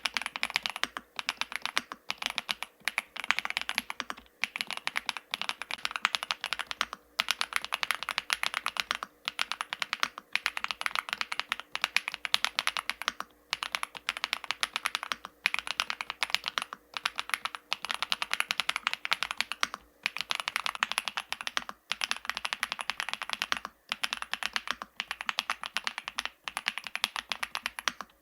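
Typing on an FL-ESPORTS Geo75 full-aluminium mechanical keyboard with Kailh x Funkeys BCP linear switches on a PC+PA plate: fast, continuous keystrokes in runs broken by brief pauses every second or two.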